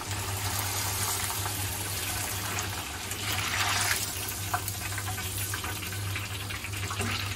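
Flour-coated tofu pieces deep-frying in very hot oil: a steady sizzle with scattered crackles and pops.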